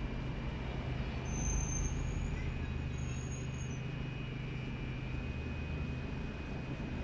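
Steady low rumble of road traffic in the background, with two short high whistles, one about a second in and one about three seconds in.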